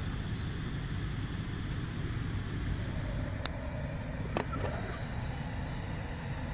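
Gas-canister camping stove burner running with a steady hiss under a pot of water about to boil. A little past halfway, two sharp clicks about a second apart as the pot lid is lifted off.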